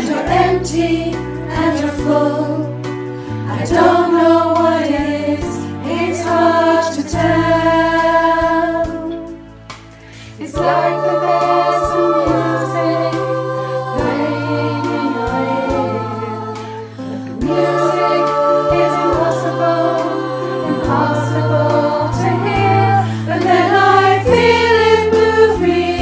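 All-female choir singing together, pieced into one virtual choir mix from home recordings, over steady low held notes. The sound thins out briefly about nine to ten seconds in, then the choir comes back in full.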